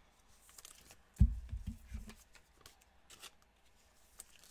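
Gloved hands handling trading cards and a cellophane card-pack wrapper: light crinkling and rustling, with a short cluster of dull thumps about a second in.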